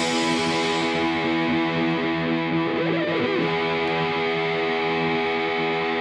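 Background music: a single long, sustained guitar chord with distortion.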